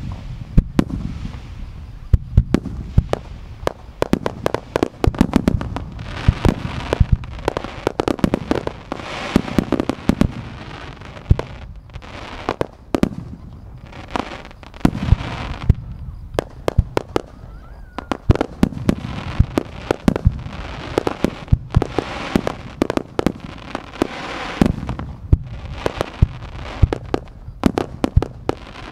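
Japanese aerial firework shells launching and bursting in a dense, continuous barrage, sharp booms and bangs following one another several times a second, with a hiss between the bursts.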